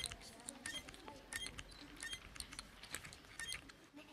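Faint, rapid, irregular small clicks and light metallic taps: a toy robot being tinkered with and repaired using a small tool.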